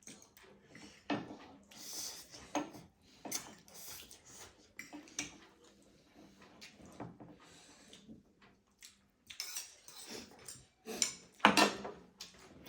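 Cutlery clinking and scraping against plates in irregular small clicks as people eat, with a louder clatter near the end.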